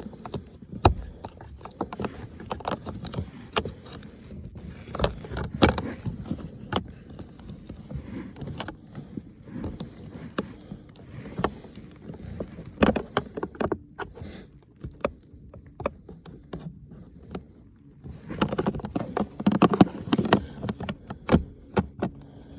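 Irregular plastic clicks, knocks and scraping as a cabin air filter and its plastic cover are pushed and worked into the housing, trying to slide into the groove and clip in.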